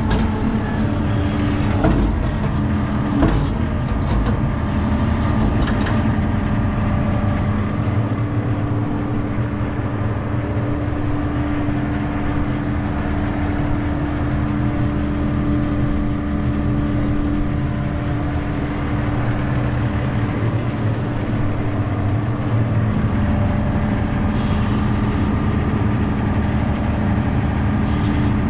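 ASV RT-40 compact track loader's diesel engine running steadily, heard close from the operator's cab, with a few sharp knocks and rattles in the first several seconds.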